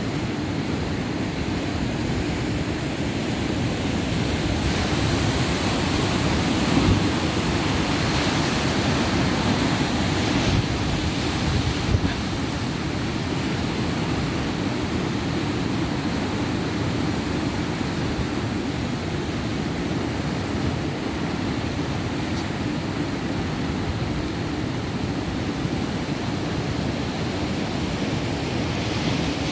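Rough, storm-driven sea, with heavy surf breaking continuously against the shore as a dense, steady rumble. Brief louder surges come about 7 and 12 seconds in.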